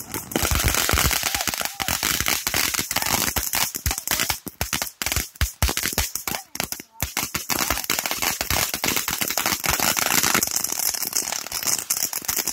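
A firework cake firing on the ground: a rapid, almost unbroken string of crackling pops and bangs. Around the middle it thins to separate bangs with short gaps, then crackles densely again.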